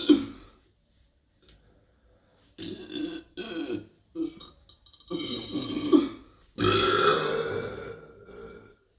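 A person burping deliberately, one burp after another. Short burps come around three seconds in, then two long, loud ones; the last lasts about two seconds and trails off.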